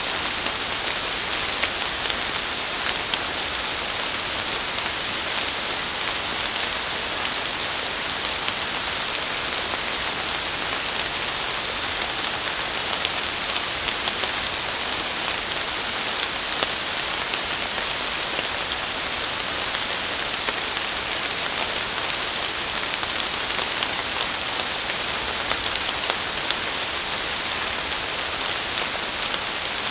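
Steady rain falling on forest leaves: an even hiss made of many small drop hits, with no let-up.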